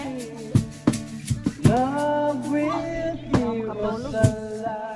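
A song playing: a sung melody over a drum kit, with sharp drum hits throughout.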